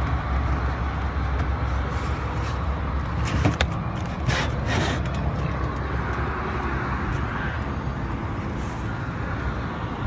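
Steady low machinery rumble from rooftop HVAC equipment. A few brief knocks and scrapes about three and a half and four and a half seconds in, as pleated air filters are handled and slid into the filter rack.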